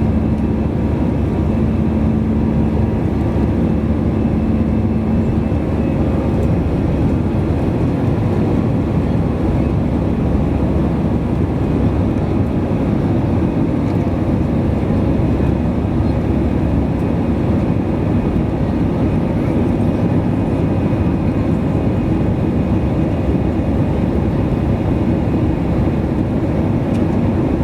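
Steady, deep roar of engine and airflow noise inside the economy cabin of an Airbus A320-214 in flight, with a faint steady hum during the first few seconds.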